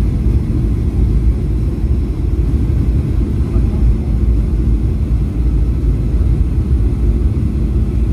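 Steady low rumble of engines and airflow heard inside a Boeing 737 cabin.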